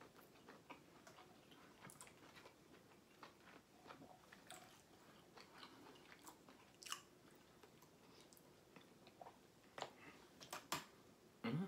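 Faint close-up chewing and mouth noises of a person eating, made of scattered soft clicks, with a few sharper clicks in the second half.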